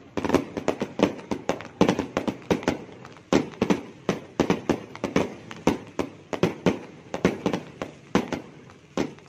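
Many fireworks and firecrackers going off together: a dense, irregular run of sharp bangs, several a second, with no let-up.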